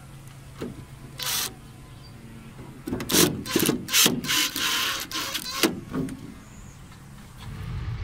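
Power drill boring into a screw hole in the awning's plastic bracket, in several short harsh bursts as the bit grinds through the plastic. Near the end a steady low motor hum starts.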